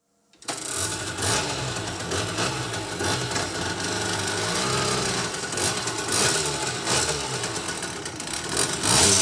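Yamaha DT two-stroke moped engine running unevenly, with a louder burst of throttle near the end.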